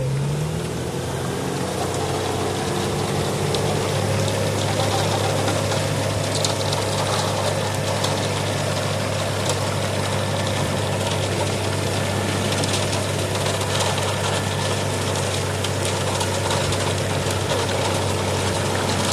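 An engine running steadily, holding a low, even drone after a brief rise in pitch at the start.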